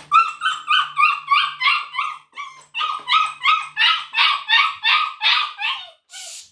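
English Springer Spaniel puppy yapping and yelping over and over in a wire crate, about three short high calls a second with a brief pause partway through. It is crying at being shut in and separated from its littermates.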